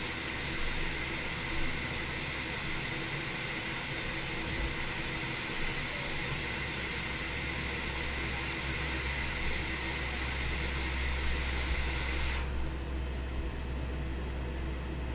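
Hot air rework station blowing a steady hiss with a faint whine, heating a laptop motherboard connector at 300 degrees to reflow its solder. The airflow cuts off suddenly near the end, leaving a low hum.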